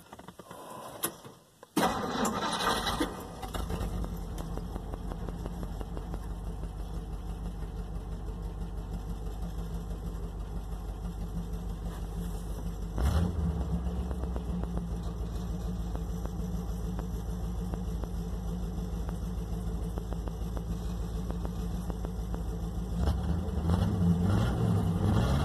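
1958 Plymouth Suburban's engine starting about two seconds in, then idling steadily while running off its cleaned original fuel tank. It revs briefly about halfway, and near the end the engine speed rises and wavers.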